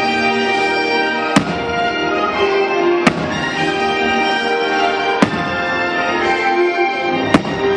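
Fireworks shells bursting in four sharp bangs, about two seconds apart, over loud orchestral show music.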